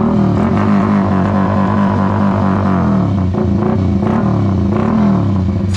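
Drag-racing motorcycle engine revved with the throttle: its pitch jumps up at the start, wavers and sinks back over the next few seconds, blips up once more about five seconds in, then settles to a steady idle.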